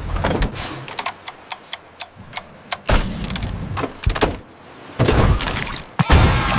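Animation sound effects: a quick run of small sharp clicks, then louder noisy bursts about three, five and six seconds in.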